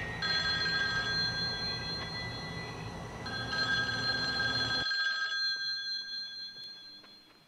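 Telephone ringing: a steady, high multi-tone ring that breaks briefly about three seconds in, then rings again and fades away.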